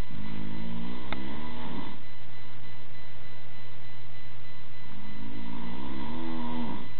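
A man snoring in his sleep: two snores about five seconds apart, each about two seconds long, over a steady low hum.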